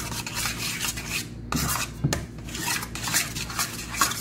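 A metal spoon stirring a thick cream mixture by hand in a metal mixing bowl, in repeated scraping strokes against the bowl.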